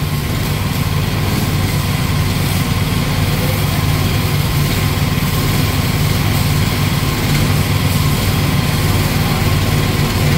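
Small engine of a Chinese-made mini excavator running steadily.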